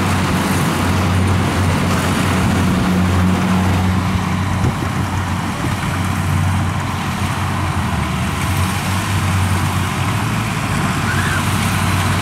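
Kubota DC-70 combine harvester's diesel engine running steadily under load while it cuts and threshes ripe rice, a constant low drone with a noisy mechanical hiss over it.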